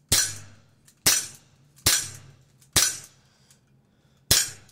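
BB pistol firing five shots, about a second apart with a longer pause before the last; each shot is a sharp crack that trails off briefly.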